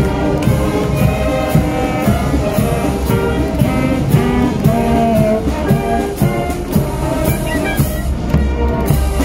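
Marching band playing: a brass melody over steady marching drums.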